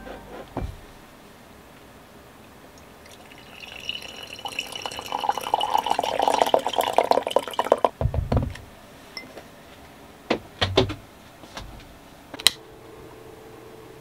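Coffee poured from an insulated French press into a ceramic mug, a splashing fill lasting about four seconds. Then a low thud and a few sharp clicks near the end.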